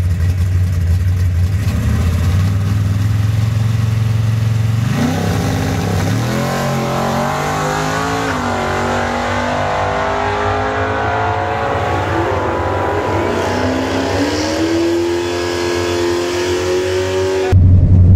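The 606-cubic-inch naturally aspirated big-block Chevy V8 of a 1968 Chevelle running steadily at the drag strip starting line, then launching about five seconds in: its pitch climbs, dips at each gear change and climbs again as the car pulls away down the track. Near the end a cut brings a louder, lower engine sound heard close up.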